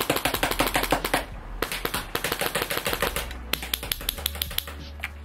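Airsoft rifle running a Polarstar Kythera mechanical HPA engine, fired on full auto in three rapid bursts of sharp pops. The last burst is short and is followed by a few single shots.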